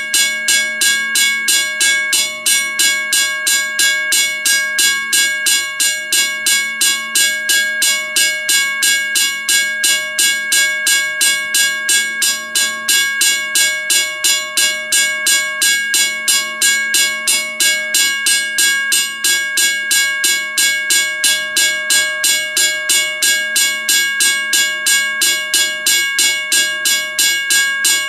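WRRS 1203 mechanical railroad crossing bell ringing continuously, its striker hitting the gong at an even pace of about two and a half strokes a second, each stroke leaving a sustained metallic ring.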